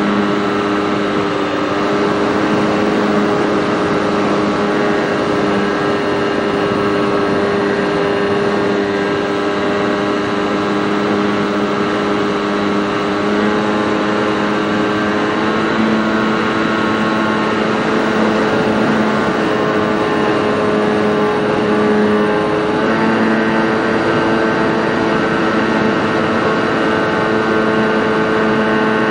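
Senorita RC model airplane's motor and propeller running steadily in flight, heard from the onboard camera, with rushing wind noise. The pitch drifts slightly and steps up a little about three-quarters of the way through.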